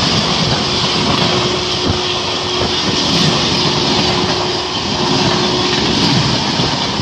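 Express train's passenger coaches passing close by at speed: a loud, steady rush of wheels on rail and wind, with a faint steady whine through most of it.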